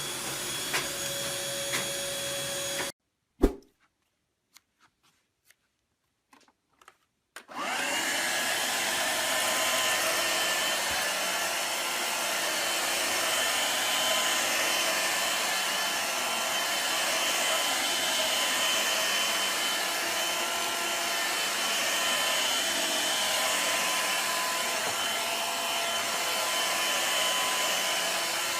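Vacuum cleaner motor running with a steady whir. It cuts out abruptly about three seconds in, leaving a few clicks, and starts running steadily again about four seconds later.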